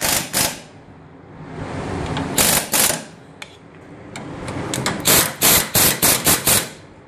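Power impact wrench tightening the upper and lower ball joint nuts of a John Deere Gator's front suspension in short rattling bursts: two at the start, two or three about two and a half seconds in, and a quick run of about seven near the end.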